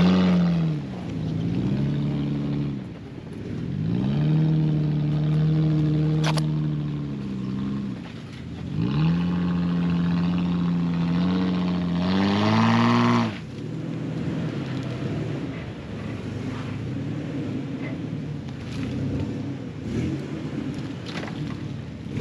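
Jeep engine revving in three pulls: each time the pitch climbs, holds for a few seconds, then falls away, with a single sharp knock about six seconds in. The third rev climbs higher and cuts off suddenly about thirteen seconds in, leaving a quieter, rougher running.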